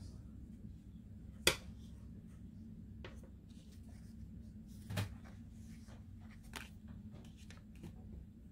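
Quiet handling sounds as yarn is wrapped around a wooden embroidery hoop from a cardboard bobbin: a few soft knocks and taps, the clearest about a second and a half in and about five seconds in, over a faint steady low hum.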